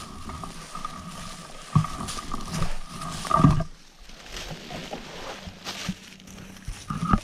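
Brush and branches crackling and snapping as someone pushes through thick woods carrying a metal detector. The detector gives a steady electronic tone that cuts out about three and a half seconds in and comes back briefly near the end.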